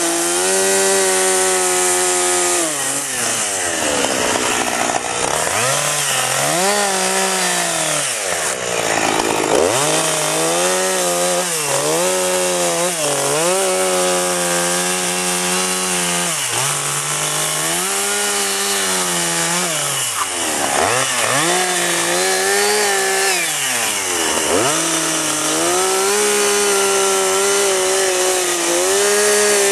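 Gas chainsaw cutting into a block of wood for a carving, its two-stroke engine running at high revs. The pitch sags and recovers about five times as the bar bites into the wood under load and is eased off.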